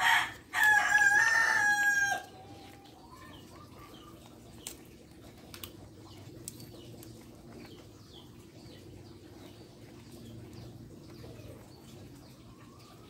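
A rooster crowing: one long call that ends about two seconds in. After it there are only faint scattered clicks over a low steady background.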